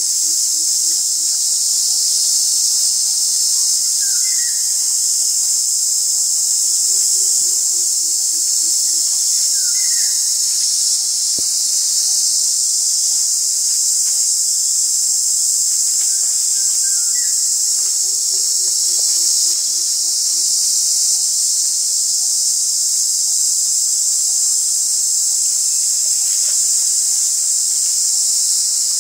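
Steady, high-pitched drone of an insect chorus, unbroken throughout. Three times, about ten seconds apart, a faint low series of hoots falls slightly in pitch, with a few short higher chirps in between.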